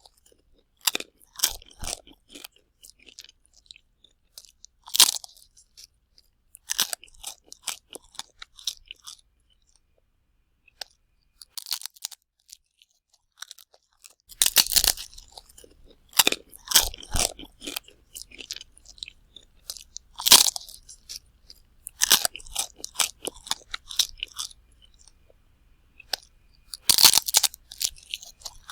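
A person chewing crunchy food close to the microphone, in irregular clusters of sharp crunches with short pauses between bites and a longer pause about halfway.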